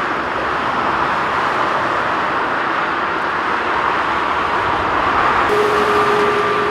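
Boeing 787 Dreamliner's Rolls-Royce Trent 1000 turbofan engines running at taxi thrust, a loud steady jet rush. A steady whine joins it about five and a half seconds in, as the aircraft sits lined up on the runway for take-off.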